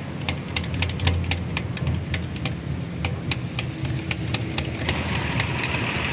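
Hand-pumped 30-ton hydraulic bottle jack giving many sharp, irregular metallic clicks as its ram rises, over a steady low engine-like hum. A hiss comes in about five seconds in.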